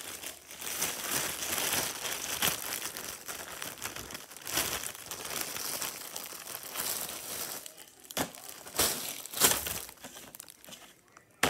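Plastic bread bag crinkling and rustling as it is handled and opened to take out slices, with a few louder crackles near the end.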